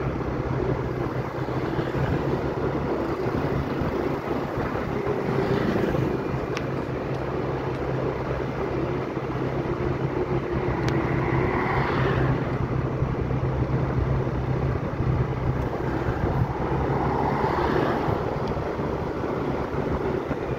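An engine running steadily with a low hum, under a continuous rush of wind or travel noise.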